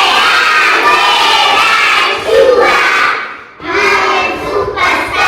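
A class of young schoolchildren reading words aloud together in unison, a loud chant of many voices, with a short break about three and a half seconds in.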